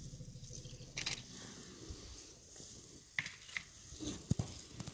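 Dry grass and brush crunching and crackling as elephants move and feed, with a few sharp snaps and a heavier low thump near the end.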